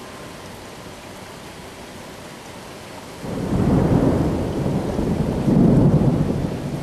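Steady rain, then about three seconds in a loud roll of thunder rumbles in suddenly and swells twice.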